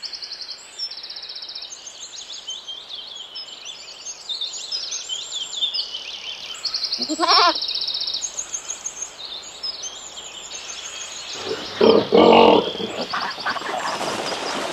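Countryside birdsong: many small birds chirping and trilling throughout. A goat bleats once about seven seconds in, and a louder bleating call comes around twelve seconds.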